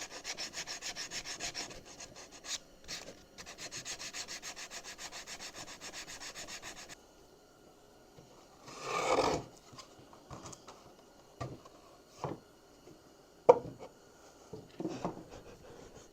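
A wooden edge being worked by hand to a bevel, rubbed with quick, even back-and-forth strokes at about five a second, in two runs that stop about seven seconds in. A short louder scrape follows, then a few scattered knocks of wood being handled, the sharpest near the end.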